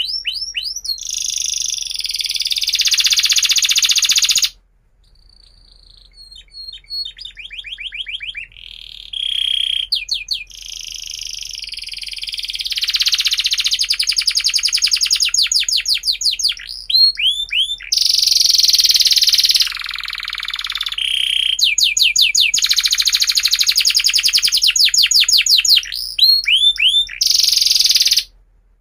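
Domestic canary singing a long song of rapid trills and buzzy rolls. It breaks off briefly about four seconds in, goes on softly for several seconds, then is loud again until it stops near the end.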